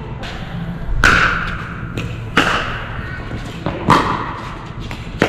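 Pickleball rally: paddles hitting the plastic ball in sharp, hollow pops about every second and a half, each with a brief ring, plus a few fainter taps between the hits.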